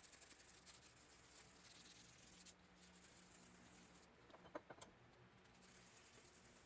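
Near silence with the faint rasp of a strip of sandpaper pulled back and forth around a steel wheel-hub spindle, deburring it, and a few small clicks about four and a half seconds in.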